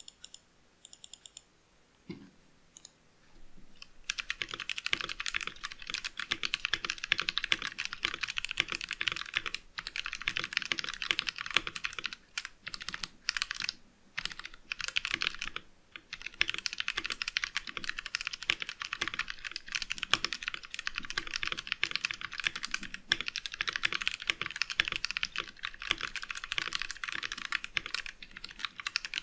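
Fast, continuous typing on a VX5 mechanical keyboard with Outemu Brown tactile switches. A few separate clicks come first, the rapid typing starts about four seconds in, and it breaks off briefly a few times.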